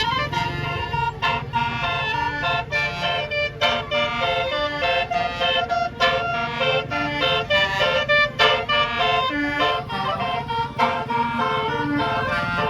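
A bus's telolet horn, a multi-trumpet musical air horn, playing a quick melody of short notes that step up and down, over the low steady running of the bus engine.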